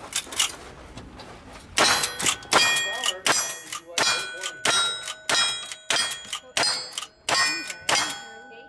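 Rifle fire in steady succession, about ten shots roughly two-thirds of a second apart. Each shot is followed by the ringing clang of a steel target being hit. Two fainter cracks come in the first half second.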